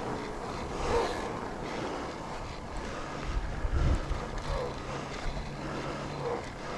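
Mountain bike tyres crunching and hissing through fresh snow, with a low gust of wind buffeting the microphone about three seconds in.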